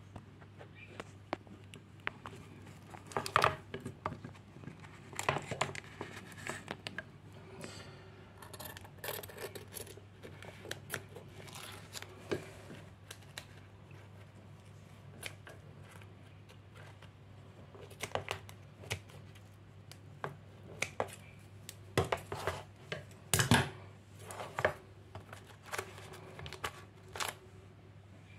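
Scissors cutting through the thin clear plastic housing of a Brother inkjet printer's waste-ink absorber. The sound is irregular sharp snaps and crunches in clusters, over a steady low hum.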